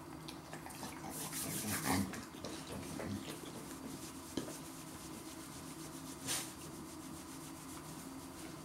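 Close rubbing and scuffing noises from a dog being hand-fed and handled, loudest about two seconds in, with a sharp click a little after four seconds and a short rush of noise a little after six seconds.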